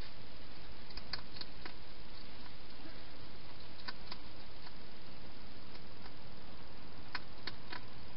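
Wild hedgehog eating at a bowl, its chewing heard as sharp clicks in three small clusters, about a second in, about four seconds in, and near the end, over a steady hiss.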